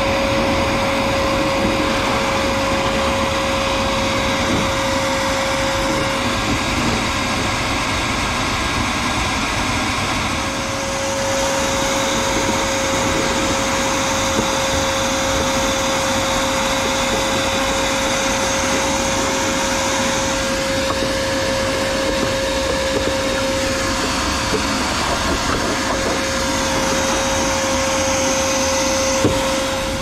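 Ridgid wet/dry shop vacuum running steadily with a constant whine, its hose sucking dirty water and debris out of a rooftop air conditioner's condensate pan.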